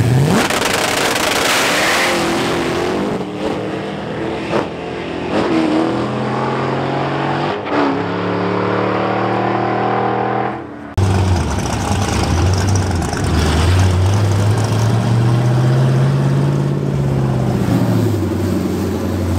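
Supercharged Hemi V8 of a 1955 Plymouth Savoy drag car launching and pulling hard down the strip, its pitch climbing and dropping sharply at the upshifts of its six-speed manual. After a sudden cut, the same engine burbles at low speed as the car drives slowly past.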